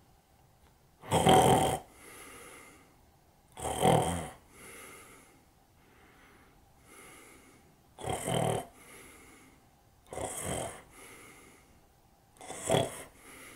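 A man doing mock snoring while pretending to nap: five loud snores a few seconds apart, each followed by a softer breath out.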